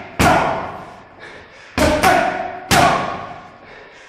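Boxing gloves smacking focus mitts: one punch, then three more in quick succession about a second and a half later. Each hit echoes off the bare walls.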